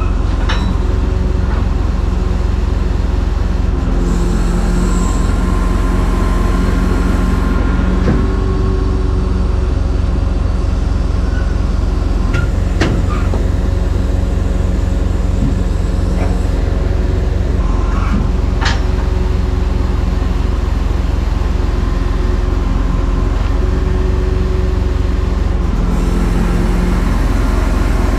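Mercedes-Benz Actros truck engine running steadily to drive the loader crane's hydraulics while the crane lifts a steel rack, with a few sharp metal clanks from the rack and crane hook.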